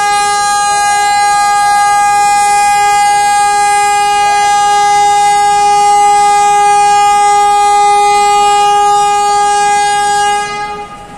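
Diesel locomotive air horn sounding one long, steady blast at a single pitch for about ten seconds, then cutting off near the end: a train's departure signal.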